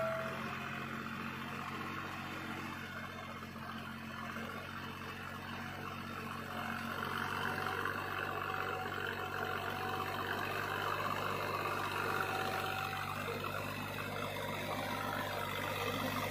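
Deutz-Fahr Agrolux 50 tractor's diesel engine running steadily, getting a little louder about six seconds in.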